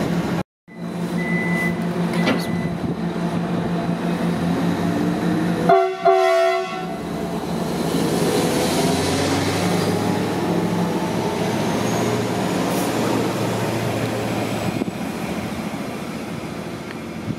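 Stadler class 331 diesel railcar's engine running with a steady hum, its pitch rising a few seconds in. A short horn blast about six seconds in, then a steady rumble of the train on the move.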